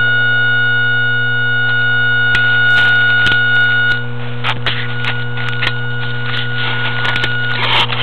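A steady whine of several fixed pitched tones from an RC model jet, heard through its onboard camera's microphone. Scattered clicks and knocks start about two seconds in and get busier after about four seconds, when one of the higher tones drops out.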